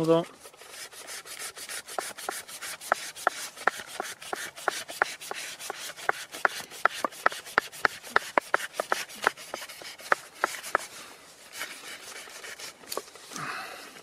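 Plain-edged Leatherman folding knife sawing back and forth through a knot in thick, slack single climbing rope: short scraping strokes, about three a second, stopping near the end. The smooth edge struggles, since fat rope without tension is where plain edges do worst.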